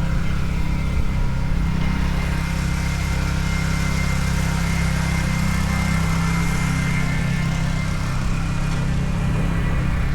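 A motor vehicle's engine running steadily with a low rumble, amid street noise, with a hiss building up about two seconds in.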